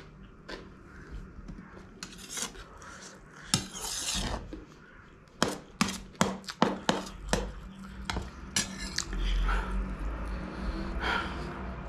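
Metal spoon clinking and scraping on a stainless steel plate while scooping up leftover noodles, with a quick run of sharp clinks about halfway through.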